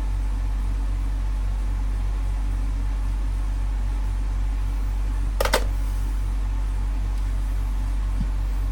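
Steady low electrical hum at mains frequency from the repair bench, with a brief sharp click about five and a half seconds in.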